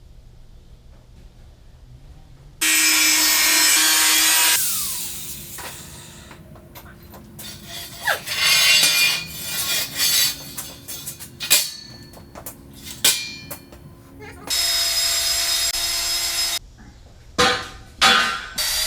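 A handheld power driver run in several bursts. Each burst is a steady motor whine that winds down with a falling pitch when it lets off, with irregular scraping and knocking of metal between the bursts.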